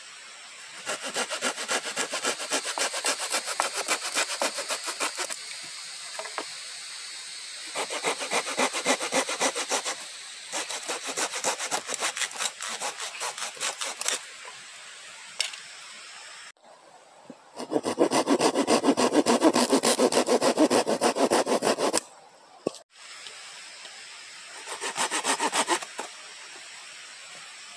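Hand saw cutting through wood in five bouts of quick back-and-forth strokes with short pauses between. The bout about two-thirds of the way through is the loudest and deepest.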